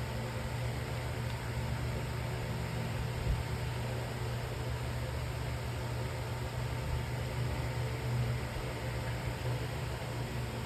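A steady low hum under an even hiss, with a single soft knock about three seconds in.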